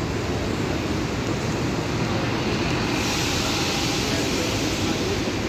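Marcopolo G8 double-decker coach moving slowly past at close range, a steady rumble of engine and street noise. A hiss grows louder about three seconds in.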